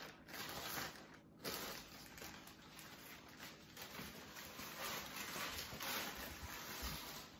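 Plastic shipping mailer bags rustling and crinkling in irregular handfuls as they are gathered up, with soft footsteps.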